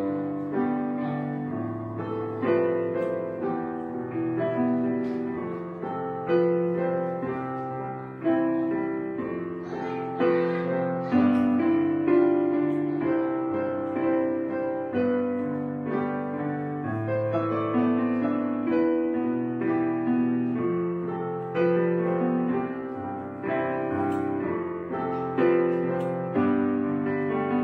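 Background piano music: soft chords, each struck sharply and left to ring and fade, a new one every second or two.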